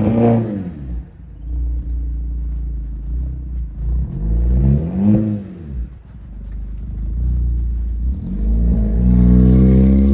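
Car engine revving up and dropping back three times over a steady low rumble, with the car driving in circles.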